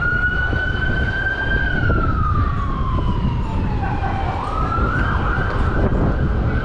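An emergency vehicle's siren wailing: it holds a high note, glides slowly down, then rises again about four and a half seconds in and holds high. A steady low rumble lies underneath.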